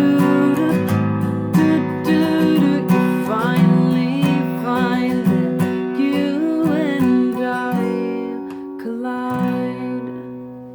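Acoustic guitar strumming the closing chords of the song, the final chord ringing out and fading away near the end.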